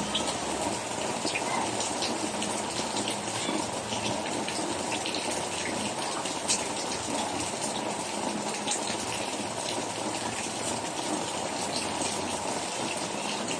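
Heavy rain pouring down steadily, with water gushing and small drops splashing and ticking throughout.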